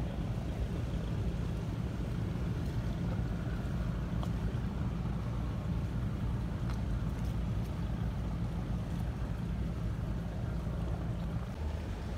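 Steady low rumble of a boat's engine heard from on board, with a light hiss of wind and water over it. The rumble drops a little near the end.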